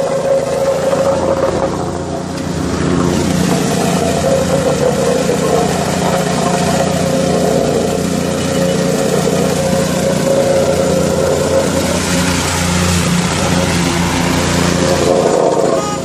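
Small petrol engine of a vibratory plate compactor running steadily at working speed as the plate tamps patch material into a wet pothole, with a brief dip in level about two seconds in.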